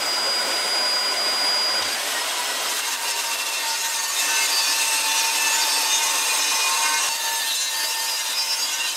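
Makita HS7601J 190 mm circular saw running and cutting along its guide rail through a sheet of MDF. A loud, steady sawing noise holds all the way through, with its whine shifting slightly in pitch as the cut goes on.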